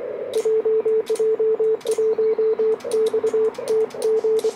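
Morse code sidetone from a Kenwood TS-890 transceiver as it transmits CW: a single steady mid-pitched tone keyed on and off in dots and dashes, over faint hiss and soft clicks.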